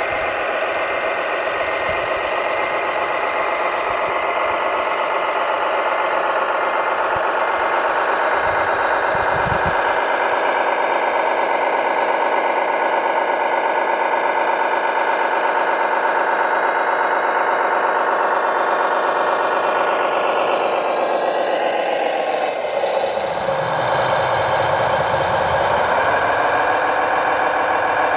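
Electronic sound module of an RC Globe Liner semi-truck playing a simulated diesel truck engine, running steadily. About 22 seconds in the engine note drops, then climbs back up a few seconds later.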